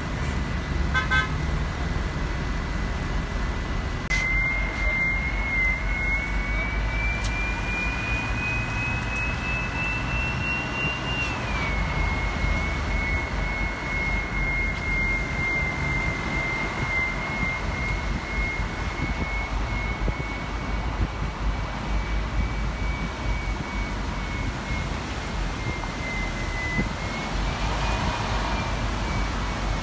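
Tour bus on the move: a steady low engine and road rumble, with a thin high whine that slowly rises in pitch, drops back about eleven seconds in, then holds and wavers.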